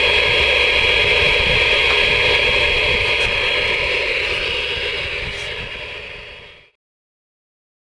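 Steady static hiss with a thin high whistle from the Ranger RCI-2970N2 ten-meter radio's receiver, fading out about six and a half seconds in.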